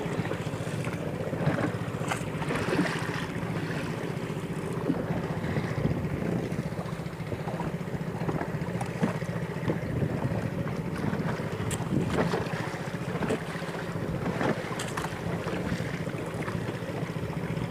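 Wooden paddle dipping and splashing beside a small wooden boat on choppy sea, with water slapping the hull and a steady rumble of wind buffeting the microphone.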